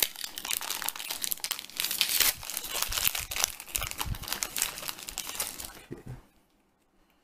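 Foil wrapper of a Yu-Gi-Oh! booster pack crinkling and tearing as it is ripped open and the cards are pulled out; the rustling stops about six seconds in.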